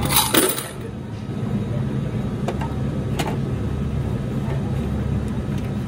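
Steady low machinery hum, with a short clatter near the start and a few light clicks as the metal parts of a U-Turn bulk vending machine are handled.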